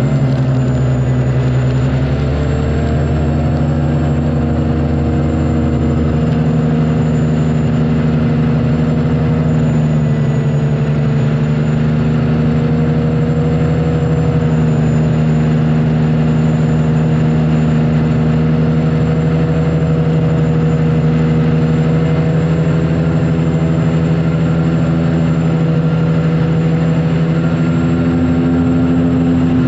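Turbine engine of an unlimited racing hydroplane running hard, heard from on board: a loud, steady drone with a thin high whine above it and a rushing noise underneath, its pitch wavering only slightly.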